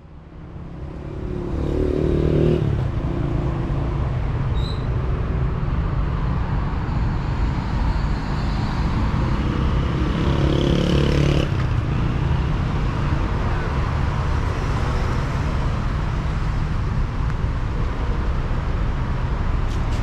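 Road traffic: steady noise of cars driving along a city street, fading in at the start, with two louder vehicles going past, one about two seconds in and one around ten seconds in.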